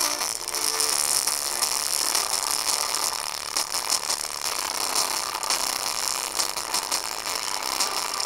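Small speaker driven hard by a mini hi-fi amplifier, overdriven so that it gives a loud, harsh, crackling distorted sound with faint musical tones showing through. It cuts off suddenly right at the end.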